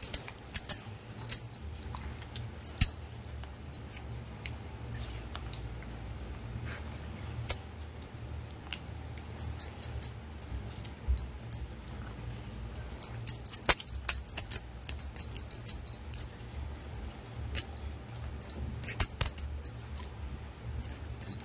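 A silicone spatula stirring chicken pieces through a thick cashew-onion gravy in a non-stick pan: scattered light clicks and clinks, bunched about halfway through and again near the end, over a low steady hum.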